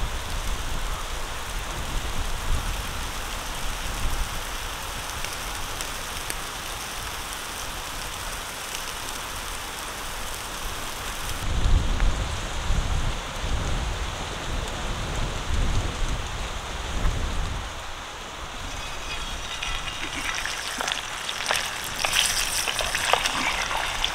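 Marinated chicken sizzling in a wire grill basket over glowing charcoal embers, a steady hiss. Then, after a cut, a wood fire under an iron pan with low rumbling, and finally a ketchup-and-chilli sauce crackling and sizzling in hot oil as a wooden spatula stirs it, with sharp pops near the end.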